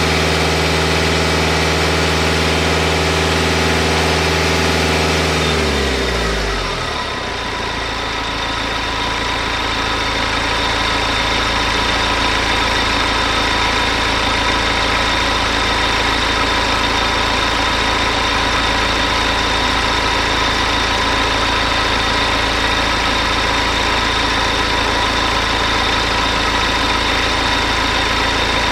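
BMW E90 3 Series engine idling steadily at operating temperature. About six seconds in, a deep hum drops in pitch and fades out while the engine runs on.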